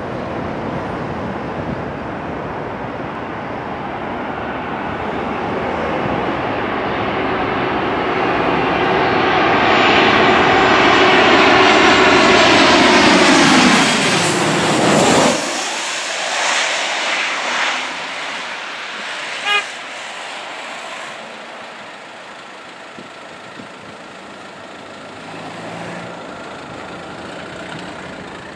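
Boeing 737-800 airliner's CFM56-7B turbofan jet engines on final approach, growing louder as it comes in low and passes directly overhead about 14 seconds in, the engine whine dropping sharply in pitch as it goes by. Afterwards the sound thins to a fainter, steadier jet whine from the distance.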